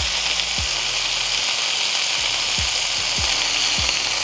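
Ground beef smash burger patties sizzling steadily on a hot steel flat-top griddle while one is pressed flat under a stainless steel burger press. A few brief low thuds come through under the sizzle.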